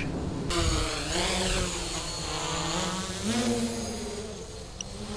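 Quadcopter with four Multistar 2213 980kv brushless motors on 9-inch nylon props flying, its motor and propeller whine swinging up and down in pitch as the throttle is worked, and growing fainter near the end. The motors are still pulling hard ten minutes into the flight on a 4S pack.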